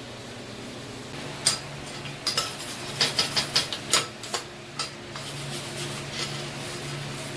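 Light metal-on-metal clinks and taps during blacksmith forging work: a quick, irregular run of about a dozen sharp strikes over a few seconds, over a steady low hum.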